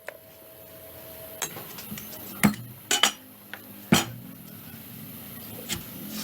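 Scattered sharp clinks and knocks of hard objects, about five in all, the loudest a little past the middle.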